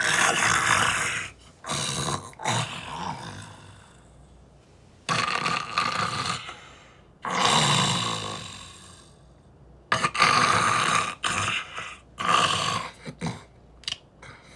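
A person snoring loudly. Each rough, rasping snore comes in a pair of breaths, about one to two seconds each, and the pairs repeat about every five seconds.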